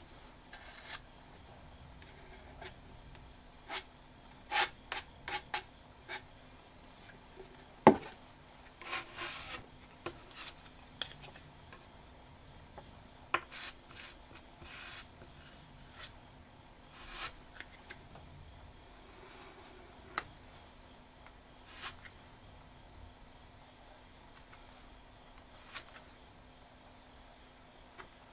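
Wooden spatula scraping and tapping as sabiji (lacquer and whetstone-powder paste) is worked on a board and spread onto a lacquered box's corners: scattered short scrapes and clicks, the sharpest about eight seconds in. A steady, high, pulsing tone and a faint low hum run underneath.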